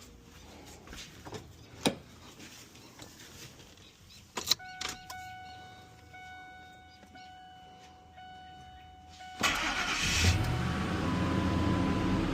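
Clicks from a key working in the ignition, then a steady warning tone for about five seconds. About nine seconds in, the old Ford's engine cranks, starts on the newly cut key, and keeps running.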